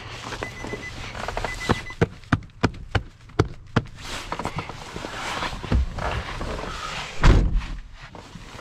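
A Nissan NV200 van's doors and fittings being worked by hand: an on-off warning chime beeps for the first couple of seconds. About six sharp clicks and knocks follow, then handling noise, and a heavy door thud a little after seven seconds in.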